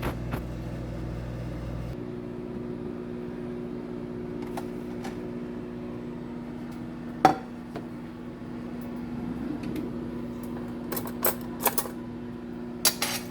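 Microwave oven running with a steady hum as it cooks, with a few sharp clicks and knocks on top, the loudest about seven seconds in and several more near the end.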